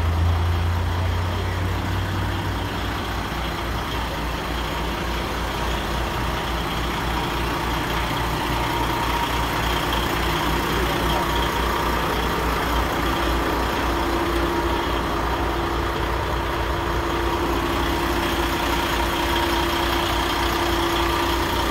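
Heavy truck engine idling steadily with an even, fast low pulsing; a deeper hum fades out about two seconds in.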